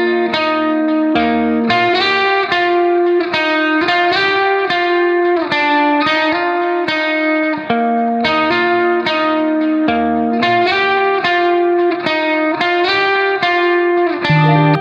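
Background music: an instrumental melody played note by note on a plucked string instrument, with a lower accompaniment coming in and out.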